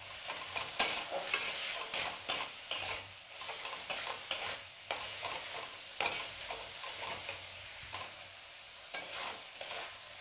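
A spatula scraping and stirring tomato-and-spice masala around a metal kadai in quick, irregular strokes, over a light sizzle of frying.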